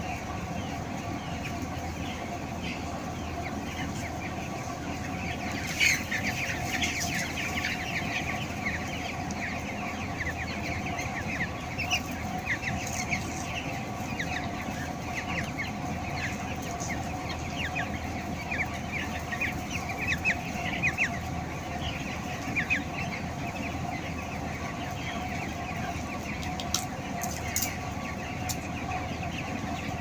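A large flock of broiler chickens calling: many short, overlapping high peeps and chirps, busiest from about six seconds in, over a steady hum.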